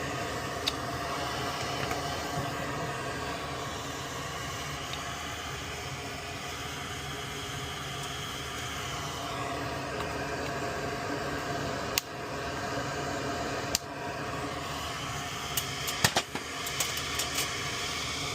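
Steady whirring hum of a fan running in a small room, with a few sharp clicks and taps in the second half.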